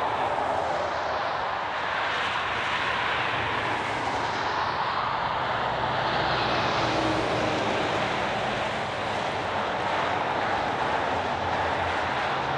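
Road traffic on the highway below: a steady rush of tyre and engine noise, with vehicles sweeping past, one about a second in and another around five seconds in.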